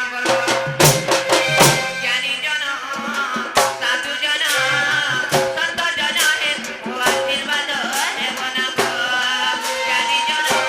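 Live Sambalpuri folk-theatre music: hand drums beating a rhythm under a sustained melodic instrument line, with a quick run of sharp drum strikes about a second in.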